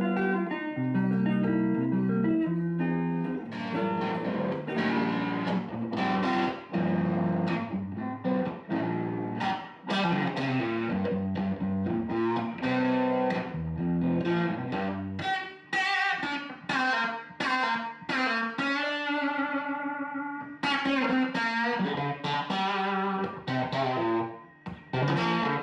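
Electric guitar, a Fender Custom Shop Telecaster, played through the hand-built White Higher Fidelity tube amp replica with its volume at 12 out of 12, giving a crunchy, lightly overdriven tone. The playing is a run of picked single notes and chords, with one chord left ringing and wavering about two-thirds of the way in.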